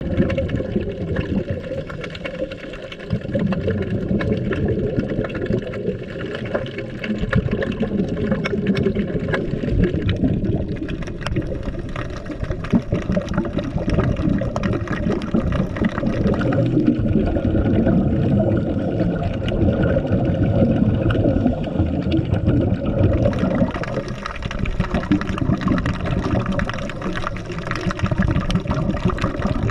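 Muffled underwater noise picked up by a camera below the surface: a dense rushing and bubbling, strongest in the low range and full of fine crackle, swelling and fading every few seconds.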